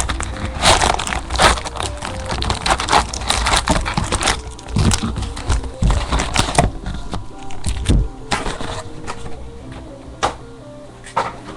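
Trading card packaging being handled and opened: irregular crackling, crinkling and tearing of cardboard and wrappers, densest in the first eight seconds. Faint background music plays underneath.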